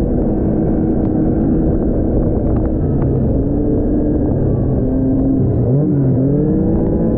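Arctic Cat snowmobile engine running under way with a steady note over a heavy low rumble. The pitch dips and climbs again about six seconds in.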